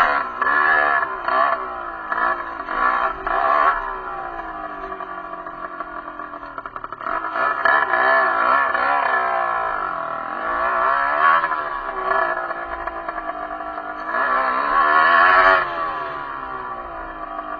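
Derbi enduro motorcycle engine revving up and down under changing throttle: several quick blips in the first few seconds, then longer pulls that rise and fall.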